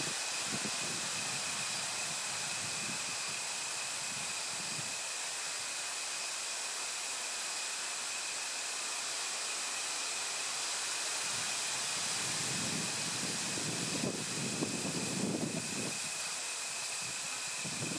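Outdoor ambience: a steady hiss with a few faint, level high-pitched tones, broken by irregular low rumbles during the first five seconds and again from about twelve to seventeen seconds in.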